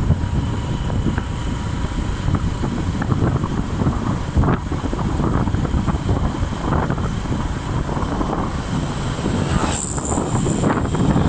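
Wind buffeting the microphone of a camera carried on a moving vehicle, a steady low rumble with the vehicle's running and road noise beneath it.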